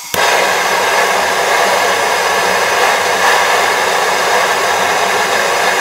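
Hand-held gas torch burning with a steady hiss, its blue flame heating a fishing jig head for powder painting. It starts abruptly just after the start and holds even throughout.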